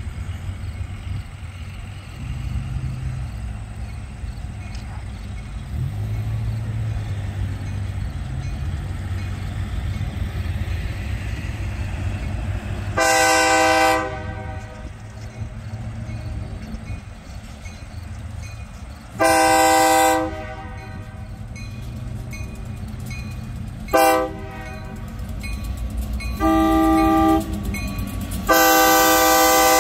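Great Lakes Central Railroad diesel locomotive sounding its air horn for a grade crossing: two blasts of about a second, a short toot, another blast of about a second, then a long blast held at the end, all over a low rumble.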